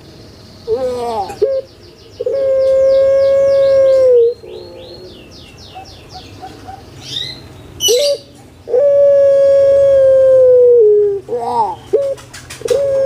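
Puter pelung dove (Barbary dove) calling twice, each call a few short rising notes followed by a long drawn-out note of about two seconds that holds steady and then drops at the end. Small birds chirp faintly in the gaps.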